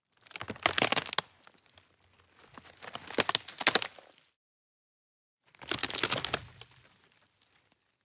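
Knife slicing lengthwise into a raw eggplant: three crisp, crackling cuts through the skin and flesh, each about a second long with short pauses between.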